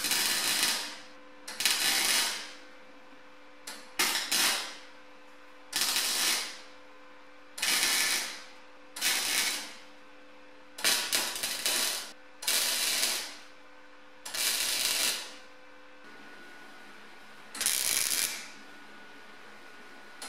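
MIG welder running solid wire under C25 shielding gas on car body sheet steel, crackling in about ten short bursts of under a second each, laid a second or two apart as stitch welds filling cut lines. A faint steady hum sounds between the bursts.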